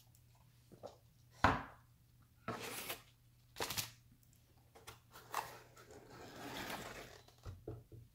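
Hands handling a cardboard pizza box: a thud about a second and a half in, then several scraping, rustling strokes of cardboard and paper as the plate and cup are moved off and the lid is lifted open, and a few light knocks near the end.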